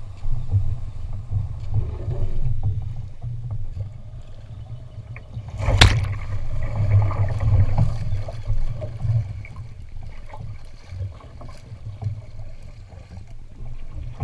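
Water sloshing and lapping against the hull of a wooden Eureka-class sailing canoe in the shallows, a steady low rumble, with one sharp knock on the boat about six seconds in.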